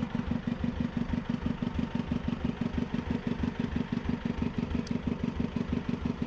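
A small fishing boat's engine running steadily, a rapid, even low thudding.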